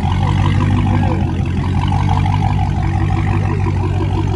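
A car engine running with a steady low drone, with faint voices in the background.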